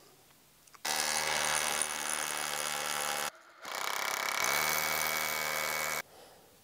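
Power drill running in two bursts of about two and a half seconds each, with a short pause between them; in the second it speeds up partway in, then holds steady.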